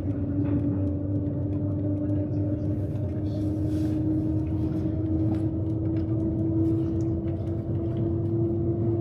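Shanghai Maglev train in motion, heard inside the passenger cabin: a steady whine that slowly rises in pitch over a constant low rumble.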